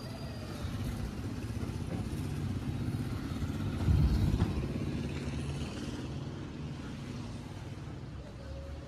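Motorcycle engines running on the road outside, a steady low hum, with a brief louder low-pitched surge about four seconds in.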